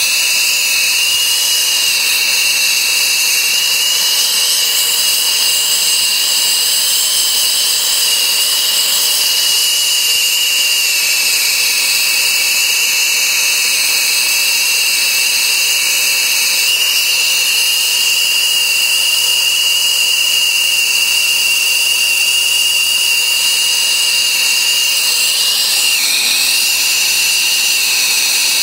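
Air-acetylene turbo torch flame burning steadily on a copper refrigerant line joint being heated for brazing: a loud, even hiss with a steady high whistle.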